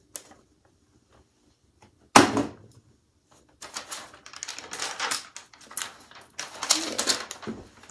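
A sharp knock from the cardboard wig box about two seconds in, then tissue paper rustling and crinkling as it is folded back from around the packed wig.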